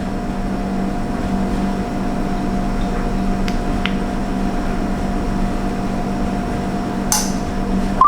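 Steady machine hum from a running appliance or fan, with a few faint clicks and a sharper click about seven seconds in.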